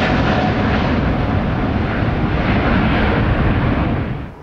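Boeing 777-300ER's twin GE90-115B turbofan engines at takeoff power: a loud, steady jet roar with a deep rumble that falls away sharply near the end.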